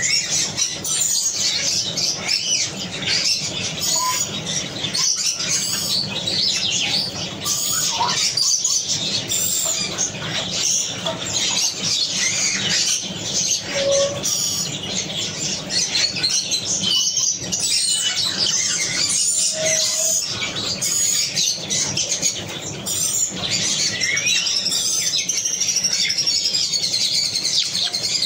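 Many birds chirping at once in a dense, continuous chorus of overlapping high-pitched chirps and twitters, with a few short lower calls standing out now and then.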